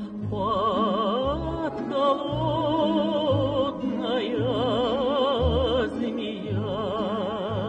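A woman singing a Russian song, holding long drawn-out notes with wide vibrato over an instrumental accompaniment with a repeated bass line.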